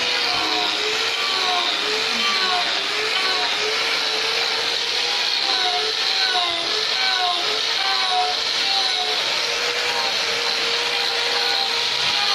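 Sawmill saw running through timber: a steady whine whose pitch keeps wavering up and down, with a hiss of cutting.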